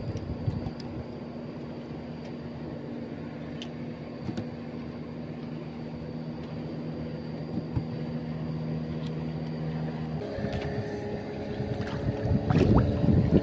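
Small boat engine running steadily, then changing to a higher note about ten seconds in. A few knocks near the end.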